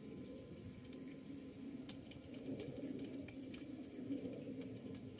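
Faint, scattered small clicks and taps of metal as alternator mounting bolts are started by hand, over a steady low background hum.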